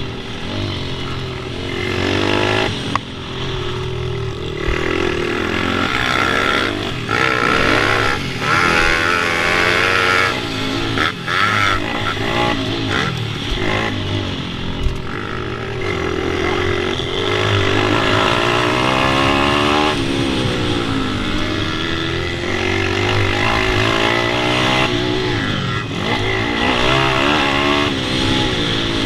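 Pit bike engine revving, its pitch repeatedly rising and falling as the throttle is opened and closed.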